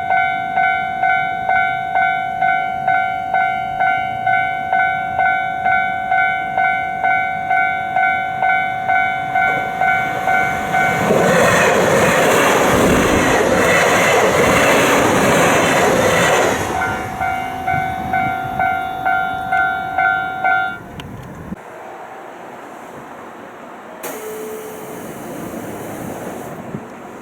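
Level-crossing warning bell ringing with an even, pulsing ding, about one and a half to two strikes a second, while a train crosses about eleven seconds in with loud wheel and track noise and clickety-clack for about five seconds that nearly drowns the bell. The bell rings on briefly after the train, then stops about twenty-one seconds in, leaving a much quieter background.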